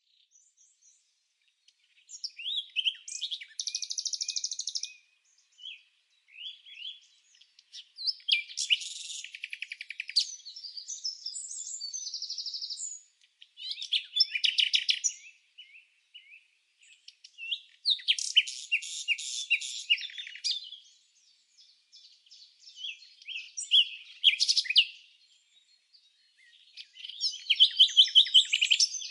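Bird song: phrases of rapid, high chirps and trills, about six of them, each lasting one to four seconds, with short gaps of near quiet in between.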